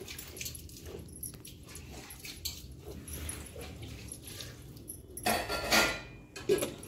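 Buffalo being hand-milked: streams of milk squirting into a metal pail already holding milk, in short uneven strokes. A louder noisy rush comes about five seconds in.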